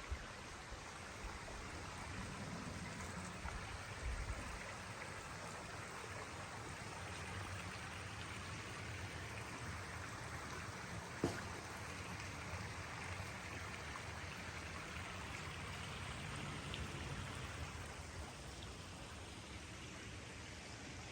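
Steady hiss of running or falling water, even throughout, with a single sharp click about eleven seconds in.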